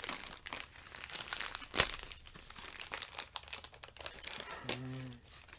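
Plastic wrapping crinkling and tearing as it is peeled off a sealed autographed photo, in a run of irregular crackles with one sharp crack about two seconds in.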